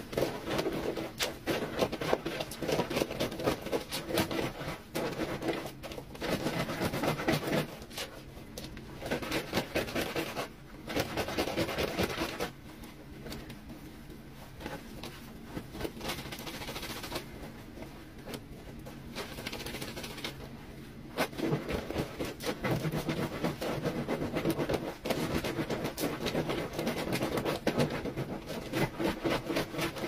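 Wet, soapy clothes rubbed by hand against the ribbed washboard of a concrete laundry sink in quick, rhythmic scrubbing strokes. The strokes ease to a quieter stretch about halfway through, then pick up again.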